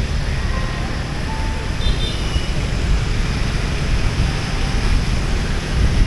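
Steady wind rush on the microphone over a low rumble of motorbike and car traffic on a wet street, heard while riding along.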